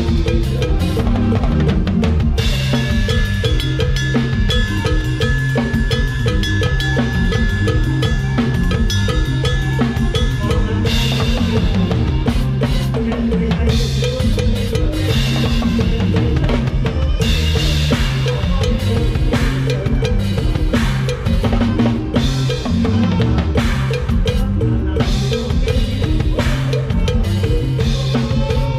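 Drum kit played in a fast Isan lam sing band groove: steady kick and snare strokes with rimshots over a pulsing bass line. A high sustained instrument note sounds from a few seconds in until about the middle.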